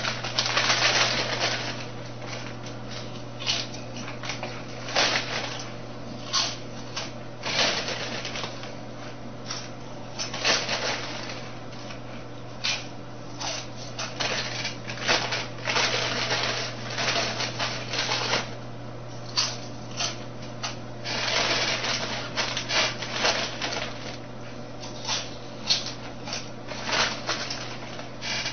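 Crinkling of a foil chip bag and crunching of Lay's Kettle Cooked potato chips, eaten fast, in irregular bursts. A steady low electrical hum runs underneath.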